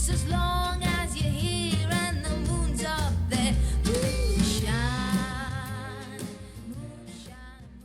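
A song with singing, drums and deep bass, played through small Creative desktop stereo speakers and picked up by a recorder's microphone. It fades out from about five seconds in.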